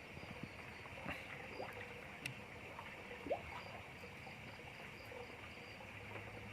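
Quiet outdoor ambience at a fishing pond: a steady hiss of insects with faint trickling water, a run of soft high chirps and a few small clicks.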